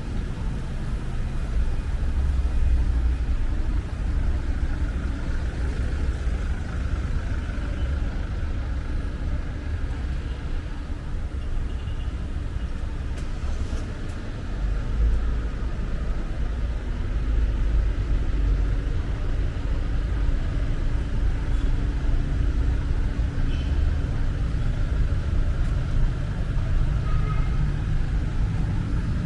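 Street traffic: a steady low rumble of cars and other vehicles going by.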